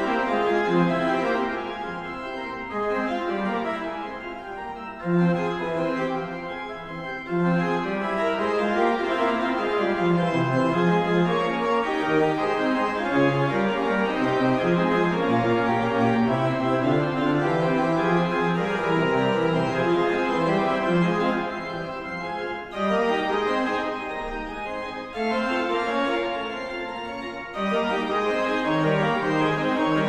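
Organ music: held chords with a melody moving over them.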